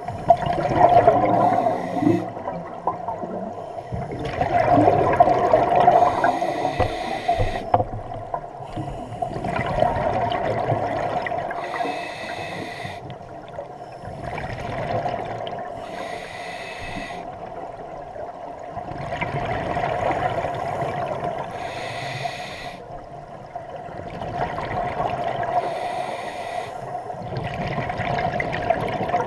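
Scuba diver breathing through a regulator underwater: a short hissing inhalation, then a longer, louder burble of exhaled bubbles, repeating about every five seconds.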